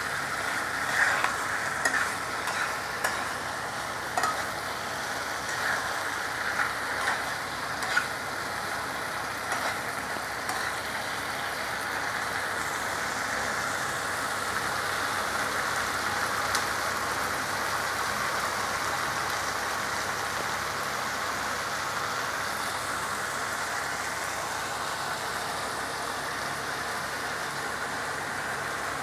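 Chicken pieces frying in onion-tomato masala in a pan, stirred with a spatula that clicks and scrapes against the pan through the first ten seconds or so, then a steady sizzle.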